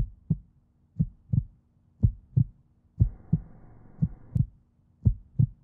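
Heartbeat sound effect: pairs of low thumps, lub-dub, about once a second, over a faint steady hum.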